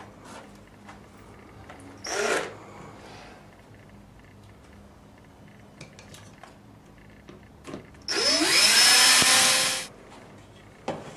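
Electric screwdriver driving a wood screw through a wooden bracket into wood wall panelling: a short burst about two seconds in, then a run of nearly two seconds near the end, its whine rising as the motor spins up.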